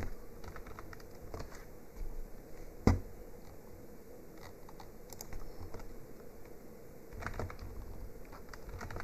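Typing on a computer keyboard: scattered keystrokes in short runs, with one sharper, louder click about three seconds in.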